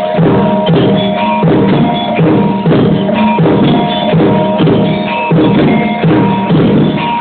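Traditional East Javanese kompang ensemble accompanying a kuda kepang dance: drums beating a steady repeating rhythm, with ringing pitched tones held over the beat.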